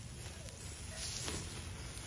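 Beef skewers sizzling and hissing over hot charcoal after being basted with oil and marinade, over a steady low rumble, with a brief louder hiss about a second in.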